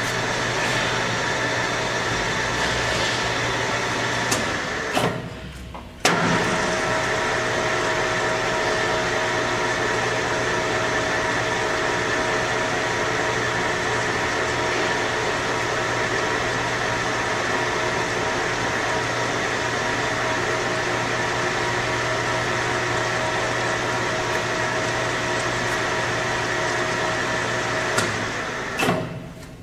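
DoAll Romi 13-5 engine lathe running with its chuck spinning, a steady hum and whine of the spindle drive and headstock gearing. About four and a half seconds in it clicks and dies down, then starts again with a sharp click about six seconds in. Near the end it clicks off and runs down.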